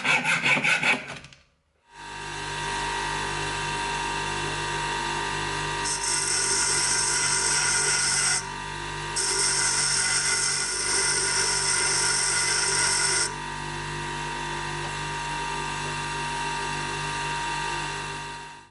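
A few quick hacksaw strokes cutting brass held in a vise, then a short break. A bench grinder then runs with a steady motor hum. Twice a small brass finger plane is pressed against the wheel, adding a loud, high grinding hiss for a few seconds each time.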